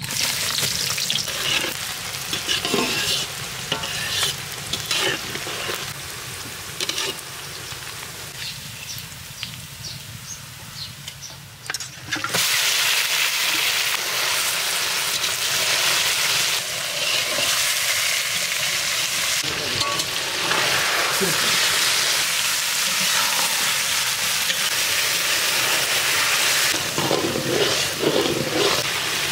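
Food frying in hot oil in a cooking pot and being stirred, with the scrape of the spatula against the pot. The sizzle becomes suddenly much louder about twelve seconds in.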